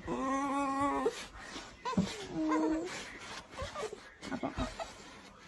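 A dog making drawn-out whining cries: one long held cry of about a second at the start, then a shorter one a little past two seconds in, with a few knocks between.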